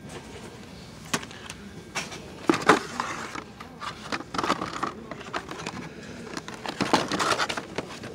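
Cardboard-and-plastic blister cards of Hot Wheels die-cast cars being rummaged through in a display box: irregular clacks, scrapes and crinkles of the packs knocking and sliding against each other.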